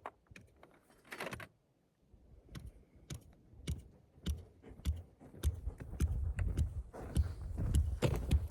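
Irregular light clicks and knocks of camping gear being handled, with a short rustling burst about a second in and a low uneven rumble growing through the second half.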